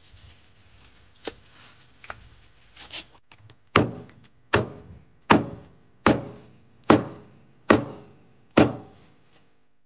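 A steady run of thuds, about one every 0.8 s: a few light knocks at first, then seven heavy strikes.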